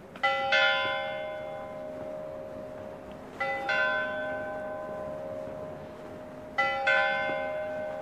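Church bells ringing: two bells of different pitch struck one just after the other, the pair repeating about every three seconds, three times, each strike ringing on and slowly fading.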